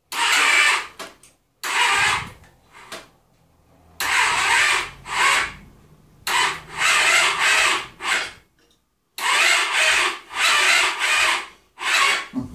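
Yamaha Virago XV535 electric starter pressed about six times in bursts of one to two seconds, whirring and straining without the engine catching. The freshly rebuilt V-twin is assembled so tight that the starter can hardly turn it over.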